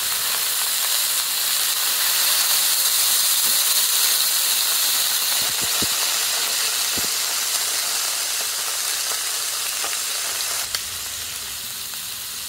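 Water squirted onto a hot Blackstone griddle among frying shrimp, hissing and sizzling loudly as it flashes to steam. The hiss swells over the first couple of seconds, then slowly dies down. The water cools the griddle so the shrimp don't burn.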